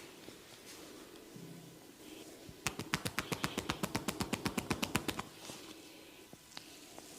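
Barber's hands striking the neck and shoulders in a percussion massage: a fast, even run of slaps, about nine a second, beginning a little way in and lasting about two and a half seconds. Before and after are quieter rubbing and light taps.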